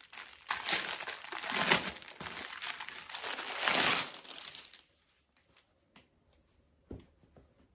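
Packaging crinkling and rustling as new table mats are pulled out of it, in loud surges for about the first five seconds, then a couple of soft taps and clicks.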